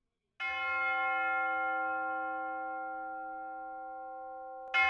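A clock bell striking the hour. One stroke about half a second in rings out long and slowly fades, and the next stroke comes just before the end.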